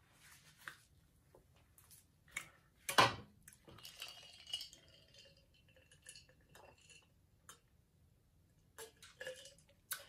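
Faint table sounds of eating and drinking: scattered clicks and clinks of glass and cutlery, with one sharp knock about three seconds in, then a drinking glass lifted and sipped from near the end.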